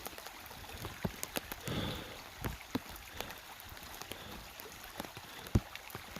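Rain falling, with many scattered sharp drop hits close to the microphone over a low wash of water running down a flooded trail.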